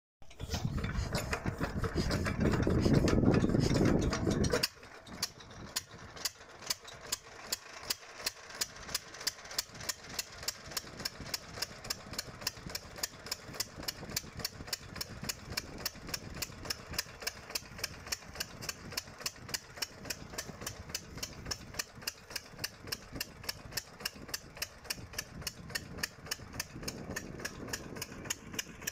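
Single-cylinder stationary diesel engine driving a well pump, running at a slow, even chugging idle. For the first four and a half seconds a louder, dense noise covers it, then cuts off suddenly.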